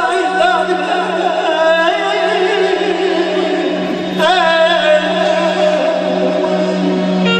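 Male singer singing live into a microphone in long, ornamented, wavering phrases, over band accompaniment with a steady low drone. A new phrase begins about four seconds in.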